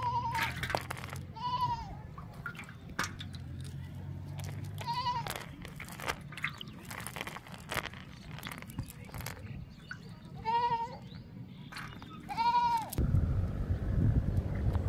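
An animal calling five short, high times with a wavering pitch, over small clicks and rustles of a nylon cast net being handled. About thirteen seconds in, a low rush of wind on the microphone takes over.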